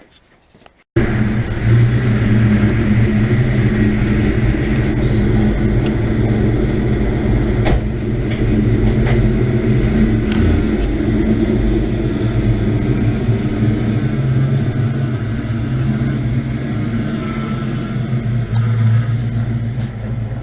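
Fox-body Mustang's 5.0-litre 302 V8 running steadily, cutting in abruptly about a second in.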